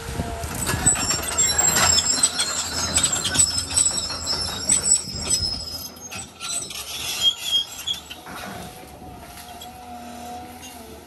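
Cat 320 hydraulic excavator forcing its bucket through brush and small trees: branches crackle and snap amid high squeals for the first six seconds or so, then the crackling dies away and the excavator's engine and hydraulics run on steadily with a faint whine.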